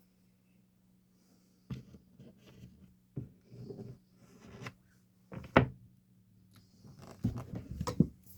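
Several sharp knocks and clicks with handling rustle between them, from setting copper rivets in a leather sheath by hand without a rivet-setting tool. The knocks are spaced unevenly, the loudest a little past the middle and a quick cluster near the end, over a faint steady low hum.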